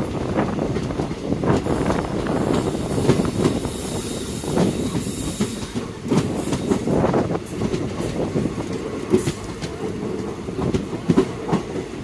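Express passenger train running at speed: a steady rumble of the coaches with irregular clicks and clatter of the wheels over the rail joints.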